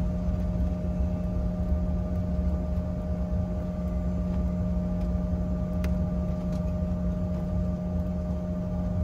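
Cabin noise of a Bombardier CRJ900 taxiing: a steady low rumble with a constant hum from its rear-mounted turbofan engines, and a faint click about six seconds in.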